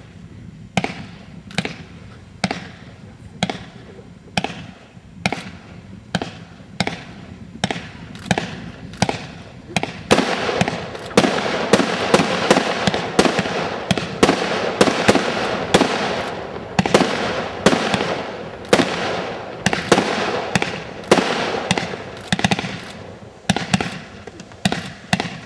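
Aerial fireworks shots launching and bursting in a steady series, a sharp bang a little less than once a second. From about ten seconds in the shots come faster over a constant crackle and hiss, then thin out to single bangs again near the end.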